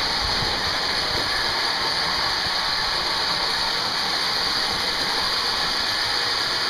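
Marx tinplate toy trains running on metal three-rail track: a steady whir of wheels and small electric motors that does not change.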